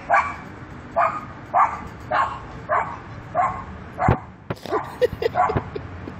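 Small dog barking again and again, about one bark every half second, the barks coming quicker near the end: alert barking at people and a dog passing the fence.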